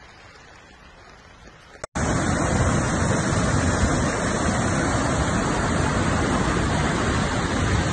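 Muddy floodwater pouring over a ledge and rushing past: a loud, steady rushing that starts suddenly about two seconds in, after a faint, even background.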